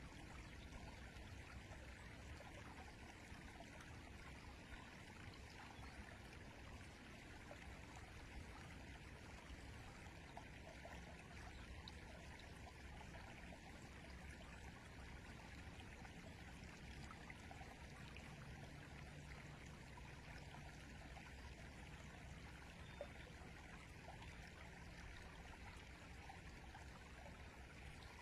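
River water flowing steadily: a faint, even rush with no breaks.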